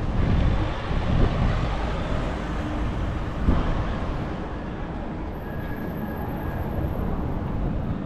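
City street ambience: a steady low rumble of traffic, heavier in the first couple of seconds, with a single knock about three and a half seconds in.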